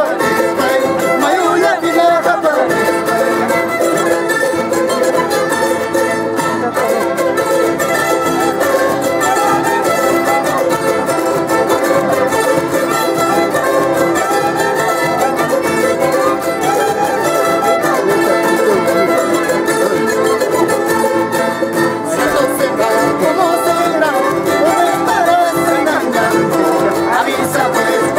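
Andean folk string band of violins, a mandolin and guitars playing a traditional tune together without a break.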